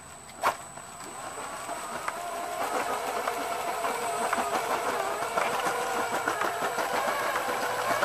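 Brushed electric motor of a 3D-printed RC snowcat driving its toothed-belt transmission and plastic tracks, running with a steady tone and a fine rapid clatter that gets steadily louder. One sharp click about half a second in.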